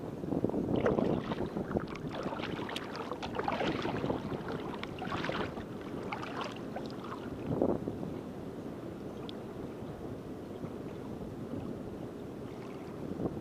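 Kayak paddle strokes, the blades splashing and dripping water in an uneven rhythm, with wind buffeting the microphone. The strokes thin out after about eight seconds, leaving mostly wind noise.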